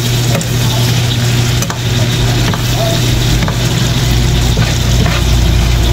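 Pork snout and chicken neck adobo sizzling in a wok as its sauce cooks down to dry, with scattered light clicks. A steady low hum runs underneath.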